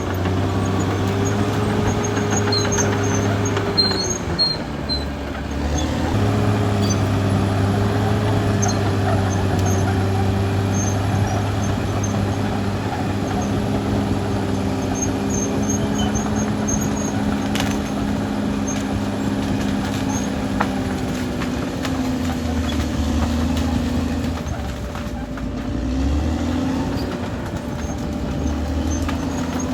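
Caterpillar D6R XL bulldozer's diesel engine running steadily under load. About four seconds in, its note drops for a couple of seconds before picking up again. In the last third it runs lower and wavers up and down.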